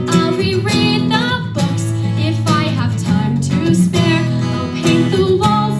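A woman singing a musical-theatre song with vibrato over a strummed acoustic guitar accompaniment.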